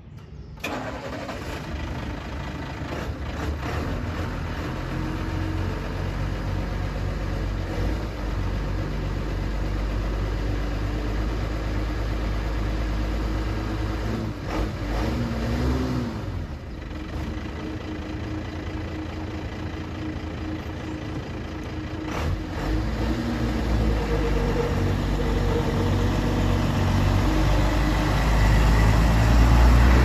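The 1992 Blue Bird International 3800 school bus's DT360 inline-six diesel starts about half a second in and settles into a steady idle. It revs up and back down about halfway through, then grows louder near the end as the bus pulls away.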